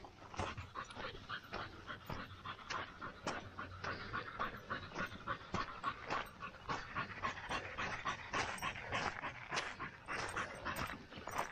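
Running footsteps on a dirt trail, striking in a quick, even rhythm, with heavy panting breaths.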